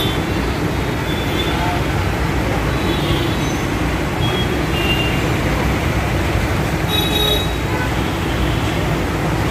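Busy road traffic of autorickshaws, buses and motorbikes: a steady rumble and hiss of engines and tyres, with a few faint short high tones through it.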